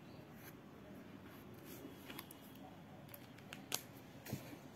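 A pen writing on a textbook page, a faint scratching, with a few short sharp clicks in the second half.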